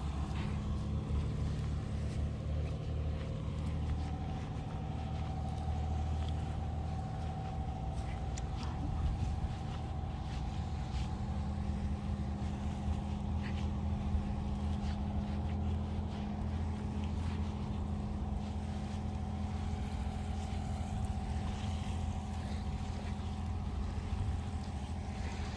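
Motorboat engine running steadily at an even pitch.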